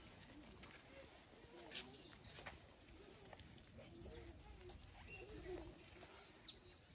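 Near silence with faint, low bird cooing and a few light clicks.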